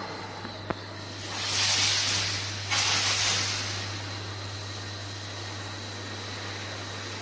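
Two hisses of compressed air venting from a tube filling and sealing machine's pneumatic system. The first swells in about a second in, just after a small click, and the second starts sharply right after it. A steady low hum runs underneath.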